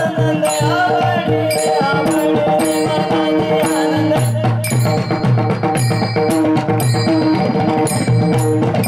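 Warkari bhajan accompaniment without singing: a pakhawaj barrel drum played in a steady rhythm with small brass taal hand cymbals clashing on the beat, over held melodic notes.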